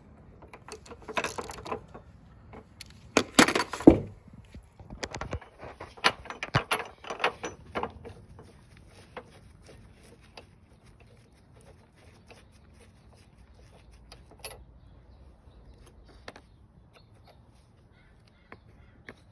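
Hand tools clinking and scraping on metal as a hex key and ratchet work loose the screws of an aftermarket camber plate. A cluster of sharp metallic knocks comes about three to four seconds in, then only sparse faint ticks.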